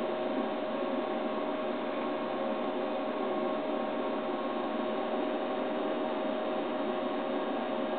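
Steady hiss with a faint steady humming tone, unchanging.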